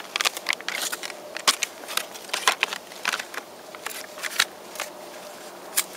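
MRE ration pouches and cardboard packaging being handled and shuffled, with irregular crinkles and sharp clicks.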